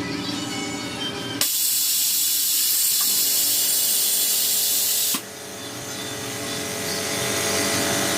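A loud, steady hiss that starts abruptly about a second and a half in and cuts off suddenly about four seconds later.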